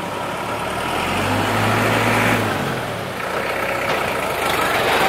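Heavy diesel engine running, its low hum swelling briefly about a second in before settling back.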